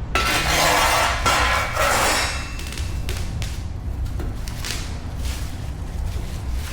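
Background music with a steady low beat. A loud rustling, clattering noise fills the first two seconds, and a few separate knocks follow.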